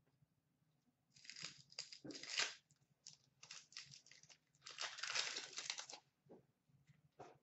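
Foil wrappers of 2015-16 Upper Deck Series 2 hockey card packs crinkling and tearing as a pack is opened and handled, in several rustling spells starting about a second in, with a longer, denser spell near the end.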